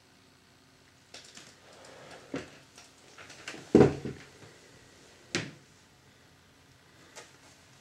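Camera handling noise: a series of clicks, knocks and rubs as the camera is moved, the loudest a thump about four seconds in, then a sharp click a second and a half later.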